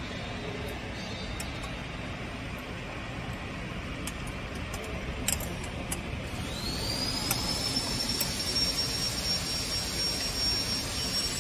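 Steady machine-like background noise, with a few light metal clicks as bolts on a steel bracket plate are undone with a hex key. About halfway in, a high whine rises quickly and then holds steady.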